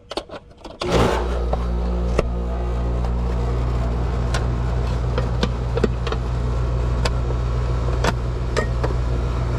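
Heat pump outdoor unit starting up about a second in, its compressor and condenser fan then running with a steady low hum. A few sharp ticks sound over it.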